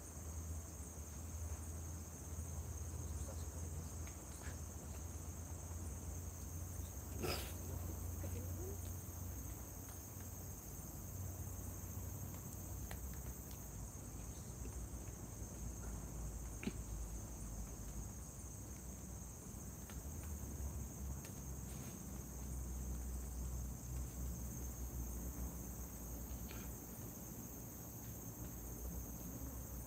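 Night-time chorus of crickets and other insects chirring steadily in high-pitched bands, over a low rumble. Two short sharp clicks cut through, the louder about seven seconds in and another about seventeen seconds in.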